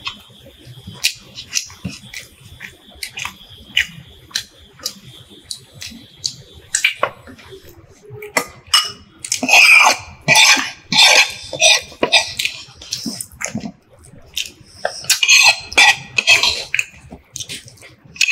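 People eating with their fingers close to the microphone: small clicks of fingers and food on plates, and chewing. About halfway in, and again near the end, there are runs of louder short sounds.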